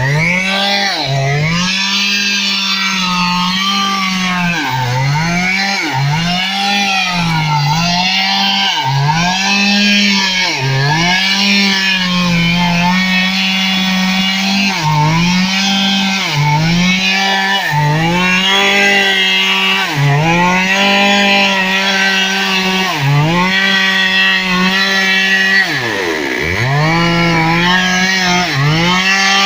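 Stihl MS 382 two-stroke chainsaw running at high revs while cutting. The engine pitch sags and recovers about once a second, with one deeper, longer drop near the end.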